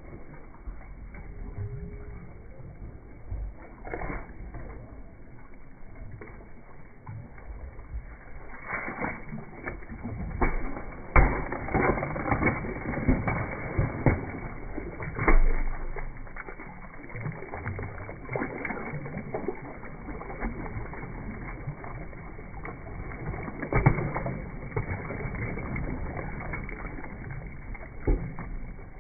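Hippopotamus chewing a whole watermelon: irregular wet crunches and cracks as the rind breaks in its jaws, thickest in the middle with a few loud cracks.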